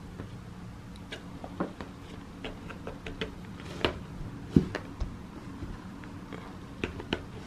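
Scattered soft taps, clicks and rustles of a cat batting at a feather wand toy and its cord around a turf-covered scratcher on carpet, with a couple of louder knocks near the middle. A low steady hum sits underneath.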